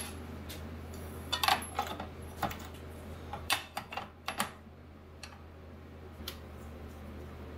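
A scattering of light metallic clicks, taps and clatters at irregular intervals as a metal flat strap is handled and set against the front of a metal battery rack, over a steady low hum.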